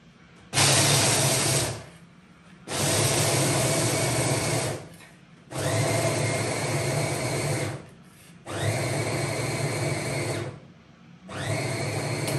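Small electric grinder run in five bursts of about two seconds each, its motor whining up to speed at the start of every burst, grinding walnuts.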